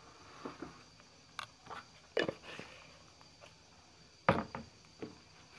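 Eating sounds: a person chewing a mouthful of lomi noodles, with a few sharp clicks of a metal fork and a glass jar, the loudest about four seconds in.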